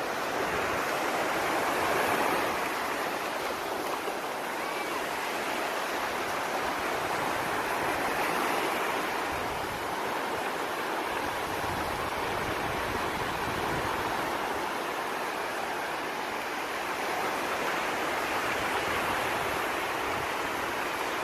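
Sea waves washing onto a beach: a steady rush of surf that swells and eases a few times.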